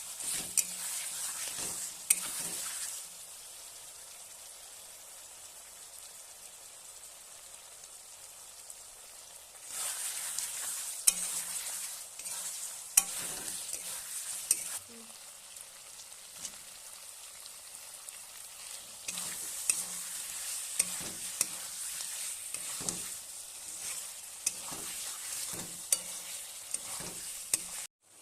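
Chicken frying and sizzling in a pan while it is stirred with a spatula that clicks and knocks against the metal. The sizzle is loud for a few seconds at a time and drops quieter in between.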